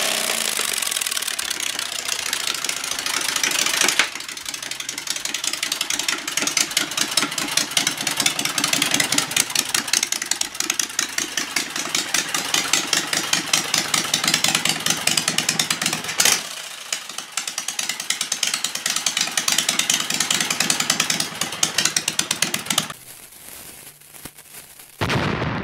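Generac home-standby V-twin engine, converted to run on gasoline through added carburetors, running through two short straight exhaust pipes with a rapid, even firing beat. Its sound changes level a couple of times, then drops away near the end.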